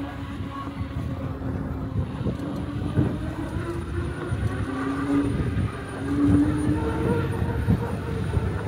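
E-bike riding along: a steady low road rumble with frequent small knocks from bumps, and a thin motor whine that rises in pitch about halfway through as it speeds up.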